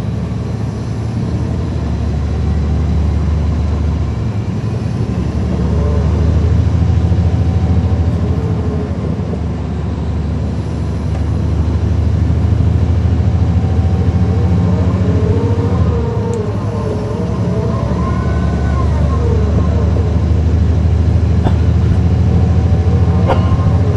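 Caterpillar C13 diesel engine of a NABI transit bus running under way, a steady low drone that eases off about 4 and 16 seconds in and builds up again. Over it a whine rises and falls in pitch, the bus's axle whine.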